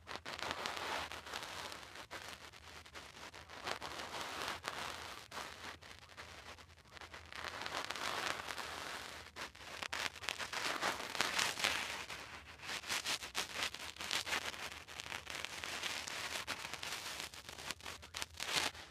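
Dense crackling, rustling noise that swells and fades in waves every few seconds and cuts off suddenly at the end.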